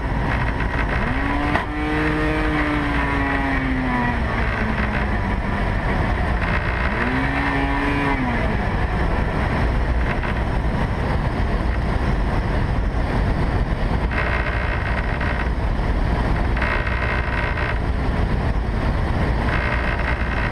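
Steady rush of wind and airframe noise in the cockpit of a Rans S-10 Sakota light aircraft in flight after its propeller has come off. Two short whines rise and then fall, about a second in and again around seven seconds.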